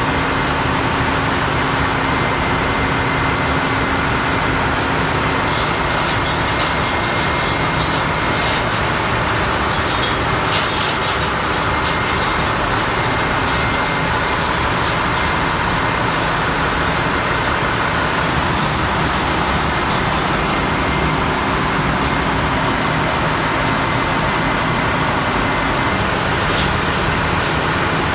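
Steady, loud din of a ship's engine room from its running machinery, with a few faint knocks from about six to eleven seconds in.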